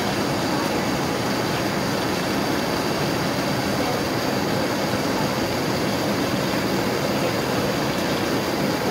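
Steady cabin noise inside a Boeing 787-9 airliner on approach: the even rush of air and hum of the jet engines, with a faint steady high whine. The noise does not change.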